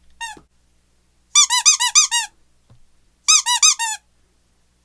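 A dog biting a squeaky pink mustache toy, the squeaker going off in quick runs of high-pitched squeaks: a single squeak at the start, a run of about seven a little over a second in, then after a pause about five more.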